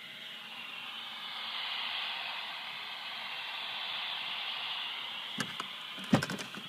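Steady hiss of radio static from a Magnum 1012 11-metre handheld radio's speaker, swelling over the first two seconds and then holding. A few sharp clicks and knocks come near the end.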